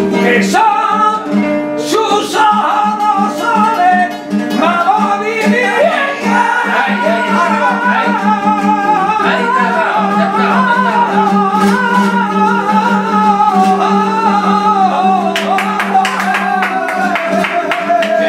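A male flamenco singer sings a long, ornamented line of caracoles, his voice wavering and winding in pitch, over a Spanish acoustic guitar. A run of sharp percussive strokes comes near the end.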